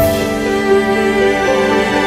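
Background music: held notes on bowed strings, with a new chord entering sharply at the start and the notes shifting every half second or so.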